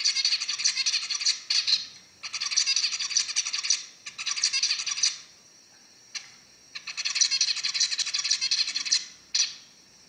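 Male zebra finch singing: several phrases of rapid, repeated notes with short pauses between them. The song stops about a second before the end.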